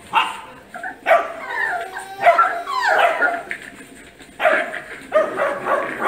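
Bernese mountain dog puppy barking, a string of short barks roughly once a second.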